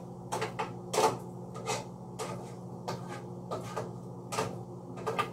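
A spoon knocking against a cooking pot as a simmering beef picadillo is stirred, with irregular knocks about once or twice a second over a steady low hum.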